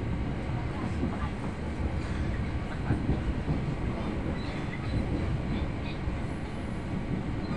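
Steady rumble of a moving passenger train heard from inside the carriage: the cars running along the track at speed.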